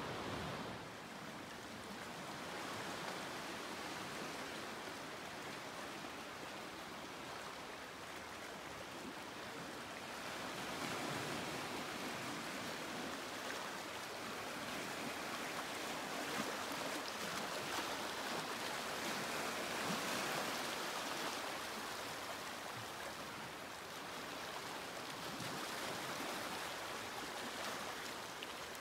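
Small sea waves lapping and washing among rocks and stones at the water's edge: a steady hiss of water that swells and eases gently.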